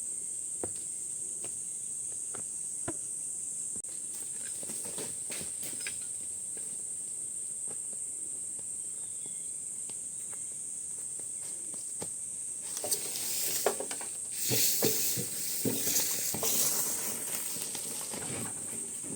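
Insects calling in a steady, unbroken high-pitched buzz, with scattered small clicks. About thirteen seconds in, a few seconds of louder rustling and knocking rise over it, then fade.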